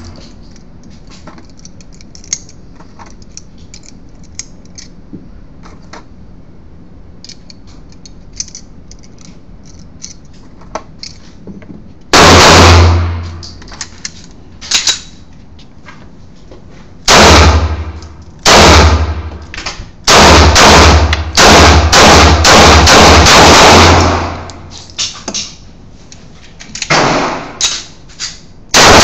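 Small metallic clicks of 9mm cartridges being pressed into a pistol magazine. About twelve seconds in, a Ruger P95 9mm pistol starts firing loud shots in an indoor range, each ringing off the concrete: single shots a second or more apart, then a fast string of about six shots, then a few more single shots.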